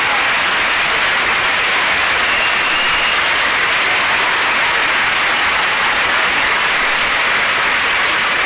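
Large convention-hall crowd applauding steadily, a dense unbroken clapping that fills a pause in the speech.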